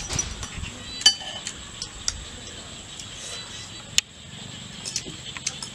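Metal spoons clinking against ceramic plates and bowls while eating, a few separate sharp clinks, the loudest about four seconds in, with some soft chewing near the start.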